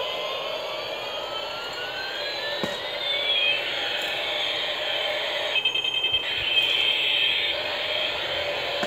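Battery-operated bump-and-go toy helicopter running, its electronic sound effects playing siren-like rising and falling tones over a steady whir, with a quick run of rapid pulses about six seconds in.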